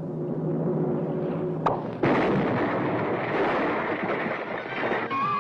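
Cartoon crash sound effect of a character bursting straight through a wooden door, leaving a silhouette-shaped hole: a sharp click, then about two seconds in a sudden loud crash that goes on for about three seconds.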